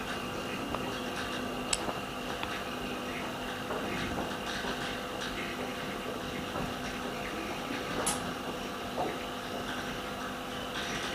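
Steady electrical machine hum, with a few light clicks and ticks of parts being handled, two sharper ticks about two seconds in and near eight seconds.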